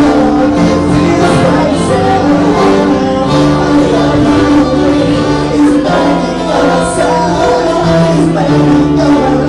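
A band's song playing loudly, with singing over held instrumental notes and occasional cymbal hits.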